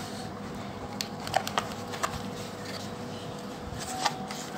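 Hands handling and opening a cardboard watch box: light taps and scrapes of cardboard, a cluster of them about a second in and single ones a little later and near the end, over a faint steady hiss.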